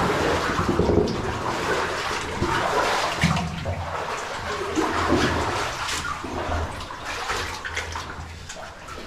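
Feet wading through ankle-deep cave stream water: uneven splashing and sloshing with each step.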